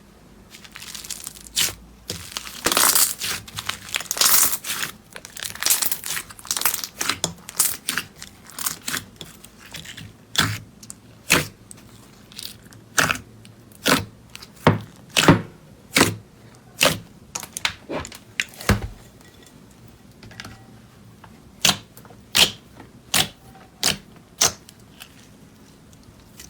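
Slime being worked by hand in close-up: crackling and tearing at first, then a steady run of sharp pops a little more than one a second, a short pause, and a few more pops.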